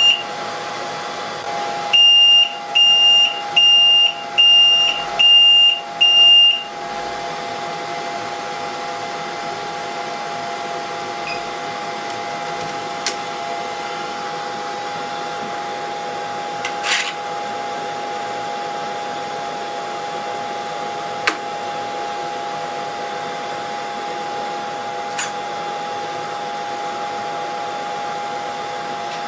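BGA rework station beeping: one high beep, then six evenly spaced beeps over about five seconds, typical of the end of a heating cycle. Its hot-air blower and cooling fans run with a steady hum throughout, with a few faint clicks later on.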